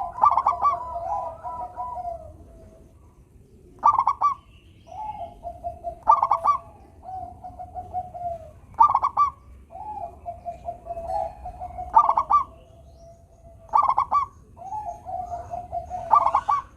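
Zebra dove (perkutut) singing its repeated cooing song. Loud, clipped notes come about every two to three seconds, each followed by a softer rolling trill.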